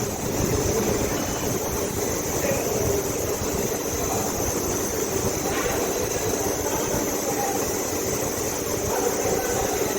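Wheel balancing machine spinning a motorcycle front wheel with its new tyre: a steady mechanical running noise with a thin high whine, measuring the wheel's imbalance.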